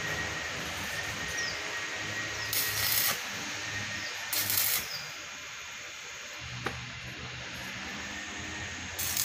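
Stick-welding arc tacking expanded steel mesh to a steel frame: three short crackling sizzles, each about half a second long, two of them in the first five seconds and one at the very end, over a steady hum and hiss.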